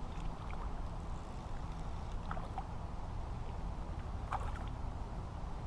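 Steady low rumble of wind on the microphone, with a few faint short sounds about two and four seconds in.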